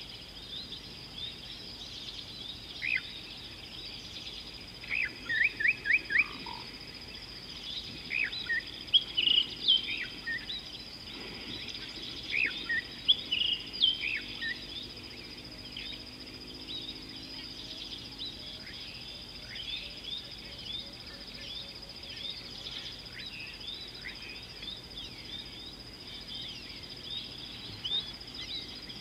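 Birds calling: many short, high, downward-gliding chirps and whistles, with a quick run of four notes about five seconds in and the loudest calls coming between about eight and fifteen seconds. A steady high-pitched tone runs beneath them.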